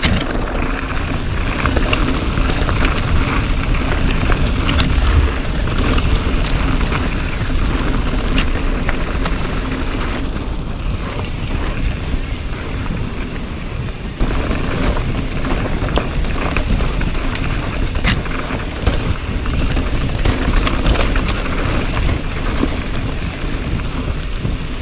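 Wind buffeting the microphone as a mountain bike rolls fast along a dirt trail: a steady rumble of tyres on the ground, with frequent clicks and knocks from the bike over bumps. It eases briefly about halfway through.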